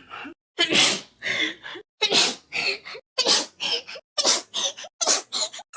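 A woman's sneeze replayed over and over, each repeat a loud, breathy burst with smaller sounds after it. The repeats come closer and closer together toward the end.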